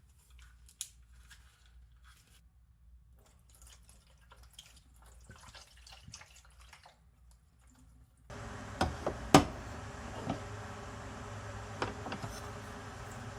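Faint scattered clicks and drips, then a steady hiss comes in abruptly and a few sharp knocks follow, typical of small objects being handled around liquid.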